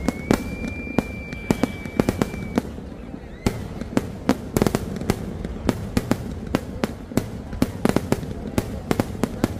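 Aerial fireworks shells bursting in a fast, irregular barrage of sharp bangs, several a second, with no pause. A steady high whistle runs through the first two and a half seconds.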